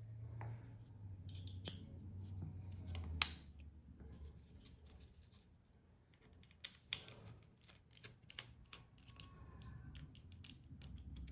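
Scattered small metallic clicks and taps of a driver bit and tools working on the folding knife's pocket-clip screws, with a few sharper clicks among them.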